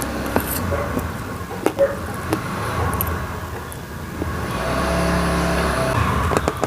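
A motor vehicle's engine humming steadily, growing louder about four and a half seconds in, with a few scattered sharp clicks over it.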